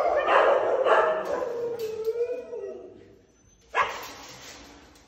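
Dogs howling and whining in loud, wavering cries that fade out about two and a half seconds in, followed by one sharp knock a little before four seconds in.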